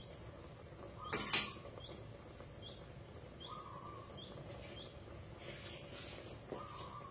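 A bird calling in the background: a run of short high chirps and two longer, lower whistled notes. A single sharp clatter comes about a second in and is the loudest sound.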